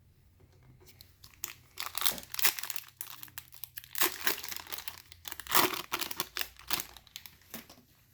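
Wrapper of a Panini Prizm football trading-card pack crinkling and tearing as it is handled and ripped open. It comes as an irregular run of crackles starting about a second in and stopping shortly before the end.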